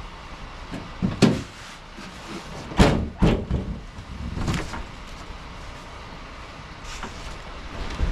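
A handful of hard knocks and thuds, loudest in a close pair about three seconds in, over a steady low background rumble.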